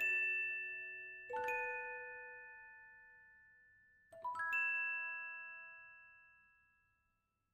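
Outro music of struck, bell-like notes that ring and slowly fade: a couple of notes at the start, a small chord about a second and a half in, and a last chord about four seconds in that rings out and dies away.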